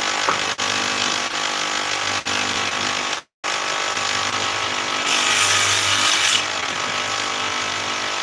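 An electric woodworking machine runs steadily, with a harsher, brighter burst about five seconds in for roughly a second and a half as a block of wood is fed through it. The sound cuts out for a moment a little past three seconds.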